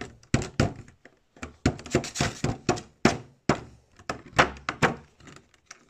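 Clear plastic packaging of a trading-card collection box being handled and pulled apart, giving an irregular run of crackles and knocks, some of them loud.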